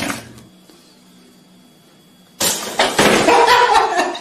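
A sudden loud crash and clatter about two and a half seconds in, after a quiet stretch, surging again half a second later.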